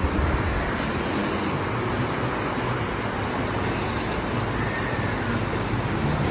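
Shallow river rushing steadily over stones, with wind rumbling on the microphone and a few louder gusts right at the start.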